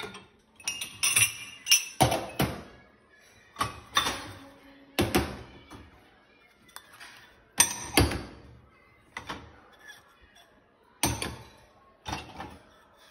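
Glasses, a mug and dishes clinking and knocking against each other and the wire racks of a dishwasher as it is unloaded by hand: a string of separate sharp clinks, some with a short glassy ring.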